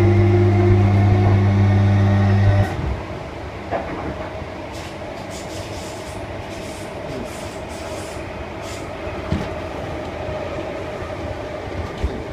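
Class 317 electric multiple unit's traction equipment humming loudly under power, a steady chord of tones that cuts off abruptly about two and a half seconds in. The train then coasts on with a quieter rumble of wheels on rail and a few clicks.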